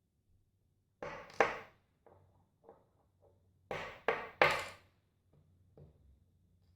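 Small brass and steel pin-tumbler parts from a gutted Chubb 6-pin euro cylinder clinking onto a wooden board: two sharp clinks about a second in and three more around four seconds in, with light ticks between.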